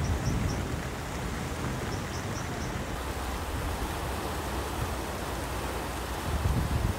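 Flooded Schmutter river rushing past and churning under a low footbridge, a steady rushing water noise. Wind buffets the microphone with low thumps right at the start and again near the end.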